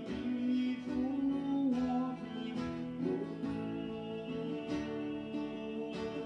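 Acoustic guitar strumming chords in an instrumental passage of a live song, with several strong strokes standing out.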